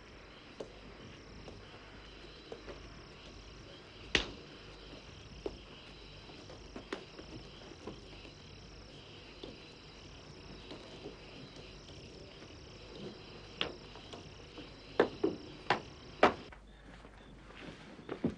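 Crickets chirring in a steady night chorus, with a few scattered knocks and taps, the loudest about four seconds in and a cluster near the end. The chorus cuts off suddenly near the end.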